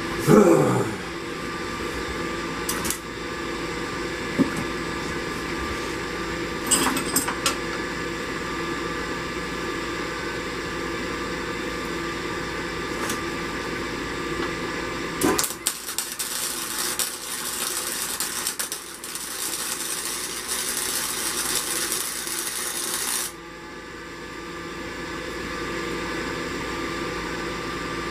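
A cheap Harbor Freight flux-core wire-feed welder in use: a steady fan hum with a few clanks of metal being handled, then about fifteen seconds in the welding arc starts, hissing and crackling for about eight seconds before cutting off.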